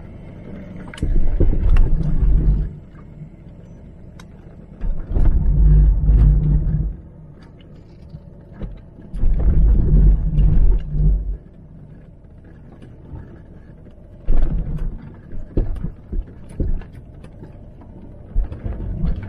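Range Rover L322's TDV8 diesel engine pulling in repeated surges of a second or two on a rough dirt track, heard from inside the cabin, with knocks and rattles as the body jolts over the ruts.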